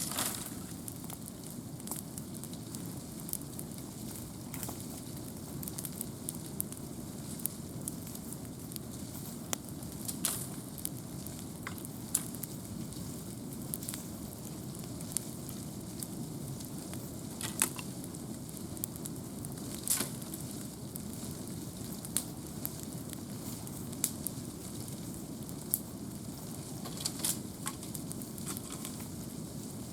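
Wood campfire burning: a steady low rush of flame with sharp, irregular crackles and pops from the burning logs.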